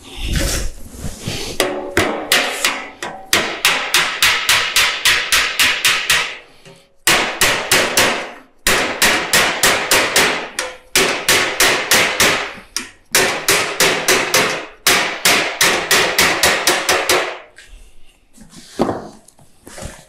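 Small hammer tapping rapidly on a painted sheet-metal roofing panel held against a metal backing plate, knocking down the folded corner 'envelope' of a double standing seam. The blows come about four a second in runs of a few seconds with short pauses between.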